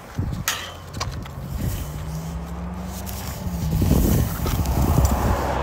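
A passing vehicle's rumble and hum growing steadily louder, with a few light knocks and scuffs in the first second.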